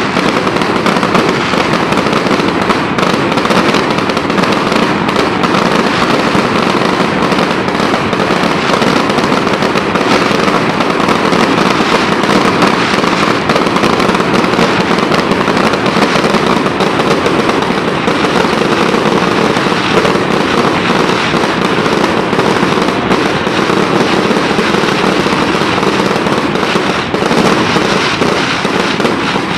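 Fireworks going off in a dense, unbroken barrage of rapid crackling bangs, with no pause.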